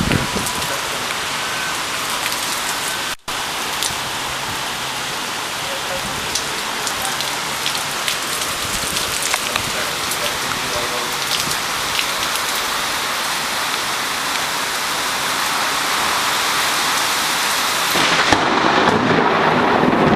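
Heavy downpour of rain hissing steadily on roofs and the balcony. It cuts out for an instant about three seconds in and grows louder near the end.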